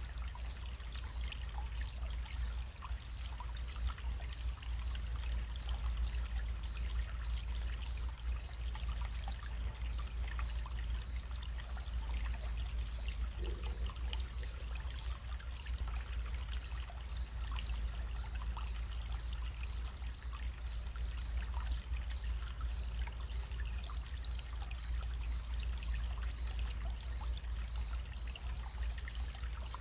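Small running stream trickling steadily, a constant fine splashing over a steady low rumble.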